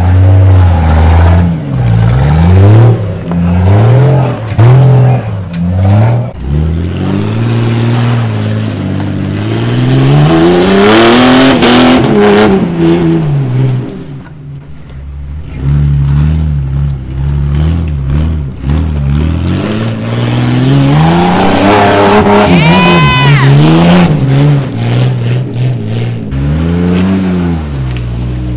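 Off-road 4x4's engine revving again and again, its pitch rising and falling with the throttle while crawling the trail, easing off briefly midway. Late on a short high whine sweeps up and down over it.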